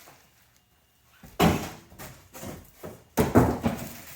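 Cardboard shipping box being handled during unpacking: two sudden loud thumps about two seconds apart, each trailed by scraping and rustling.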